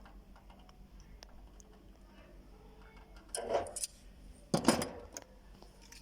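Metal parts being handled, with two short bursts of clinking and rattling, about three and a half and four and a half seconds in.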